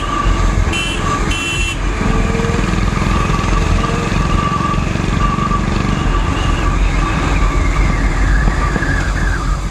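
Motorcycle engine running steadily at city cruising speed in traffic, with road and wind noise. A vehicle horn beeps twice in quick succession about a second in.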